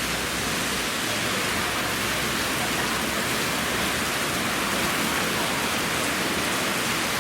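Rain falling steadily, a dense even hiss without a break.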